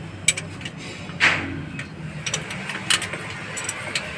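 Scattered sharp metal clicks and clinks of a wrench on the rocker arms and valve adjusting screws of a FAW CA4DF3 diesel cylinder head, as the valves are set, over a steady low mechanical hum.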